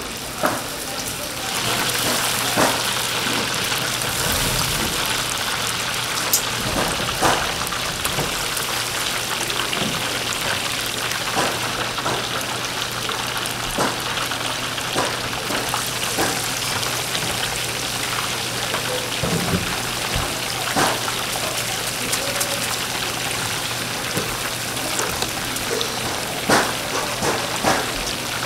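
Chicken deep-frying in hot oil: a steady sizzle that grows louder about a second and a half in, with scattered clicks and knocks over a low steady hum.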